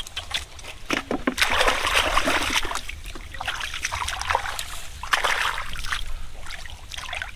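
Hands splashing and sloshing in shallow muddy water while groping through flooded grass for catfish. The splashing comes in uneven bursts, the loudest about a second and a half in and again around five seconds.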